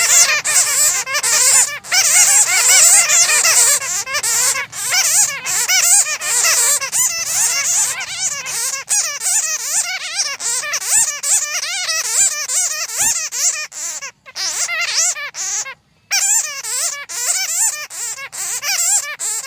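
A colony of bats squeaking and chattering, many high-pitched, fast-wavering calls overlapping densely, with two brief gaps in the sound about three-quarters of the way through.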